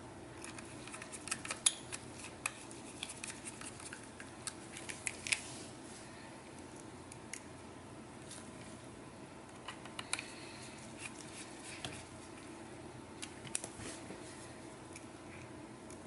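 Light clicks and small knocks of a screwdriver and a metal drive bracket being handled as a 2.5-inch SSD is seated in a laptop's drive bay. They come in scattered bunches, about a second in and again around ten seconds in.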